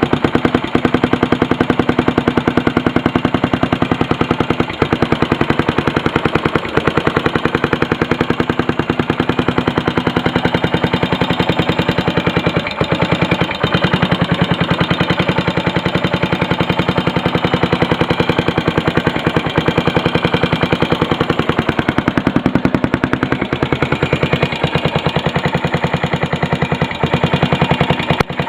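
Yamaha SR500's air-cooled single-cylinder four-stroke engine running steadily with a fast, even train of sharp knocks, a knocking the owner points to as a fault. A few louder single clicks stand out now and then.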